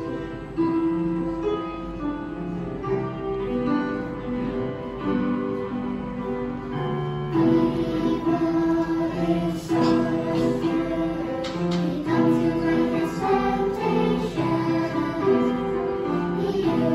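Children's choir singing a Christian worship song over instrumental accompaniment.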